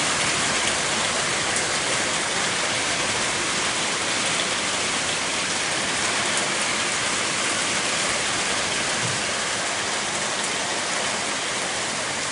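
Thunderstorm rain falling steadily, an even hiss with no thunder.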